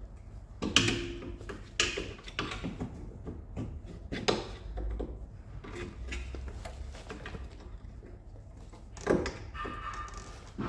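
A few sharp knocks and clunks of tools and parts being handled while stripping a car's rear suspension, the loudest about a second in, with another knock near the end.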